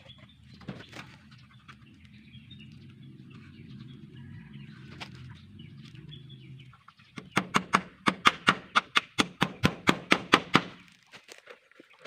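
Hammer driving a nail into a bamboo fence rail: a quick run of about twenty sharp strikes, several a second, starting about seven seconds in and lasting about three and a half seconds. Before it, a steady low hum with faint bird chirps.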